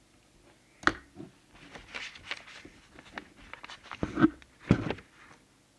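Handling noise on a workbench: a run of clicks, scrapes and knocks, with louder knocks about a second in and twice more around four to five seconds.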